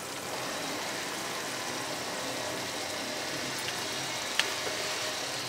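Chicken masala sizzling steadily in a pot on the gas flame, an even hiss, with a light tick about four seconds in.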